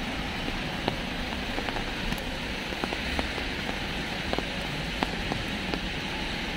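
Steady rain falling, with scattered sharp ticks of individual drops landing.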